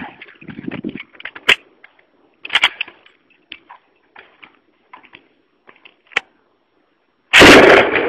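Gunfire: scattered sharp single shots and cracks, the loudest about a second and a half in. Near the end comes a much louder blast lasting most of a second.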